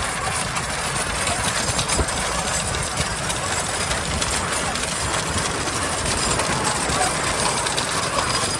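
Bullock cart with wooden spoked wheels running fast on asphalt: a steady rumbling clatter of the wheels and the bull's hooves, mixed with the engine of the vehicle following close behind.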